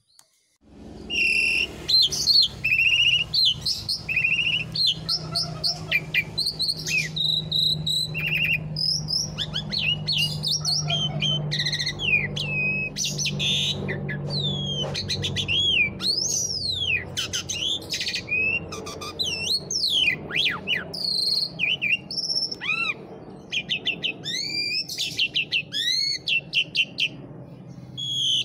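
Pied starling (jalak suren) singing loudly and without pause: a long varied song of clear whistles, fast rising and falling glides and rapid chattering trills. It starts about half a second in, over a low steady hum that fades about halfway through.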